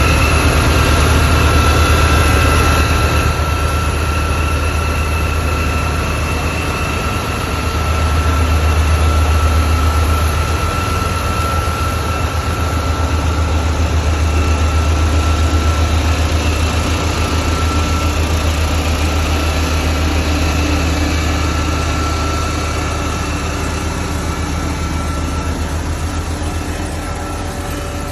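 Road roller's engine running steadily with a deep hum and a thin high whine over it, swelling and easing slightly in loudness.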